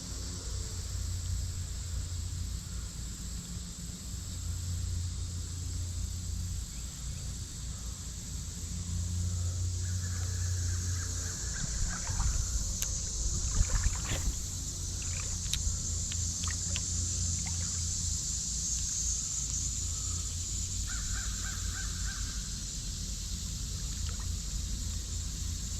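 Creek-side outdoor ambience: a steady high insect drone over low water and wading rumble. A bird gives two runs of harsh calls, about ten seconds apart, and a scatter of sharp clicks and ticks comes in the middle.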